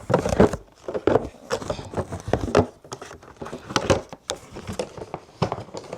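Household items being handled and unpacked: a run of irregular clicks and knocks as objects are picked up and set down.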